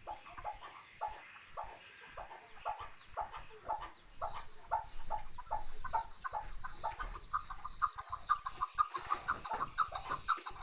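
Chukar partridge calling: a run of short clucking notes, about three a second, that speed up and grow louder from about eight seconds in.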